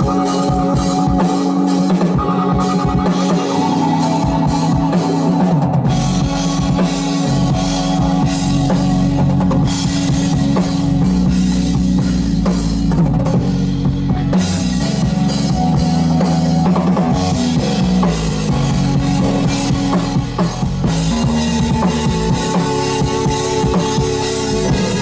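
Live drum kit and synthesizer playing together: sustained synth notes under busy drums and cymbals, with a deep bass entering about six seconds in.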